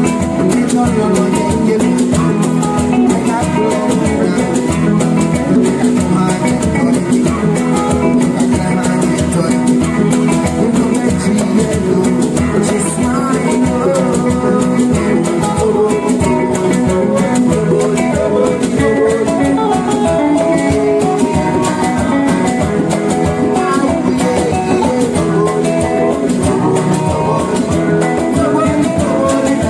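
Live band music: an instrumental passage led by guitar and plucked strings over a steady beat, with a shaker rattling.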